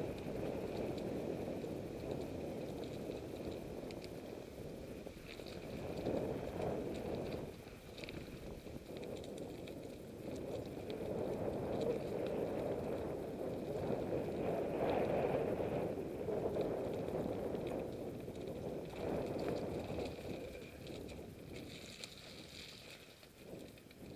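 Mountain bike riding along a gravel and dirt track: rolling tyre noise that swells and fades, with scattered knocks and rattles.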